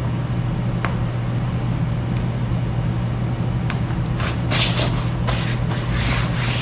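A steady low mechanical hum runs throughout. Over it, from about four seconds in, come several short bursts of rustling and scraping as the waterproof hunting bibs' fabric and side fastenings are worked.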